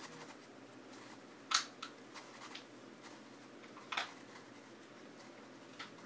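Meffert's Gear Shift plastic gear puzzle being turned by hand: a few sharp plastic clicks and clacks, the loudest about a second and a half in, a few lighter ones just after and another near four seconds.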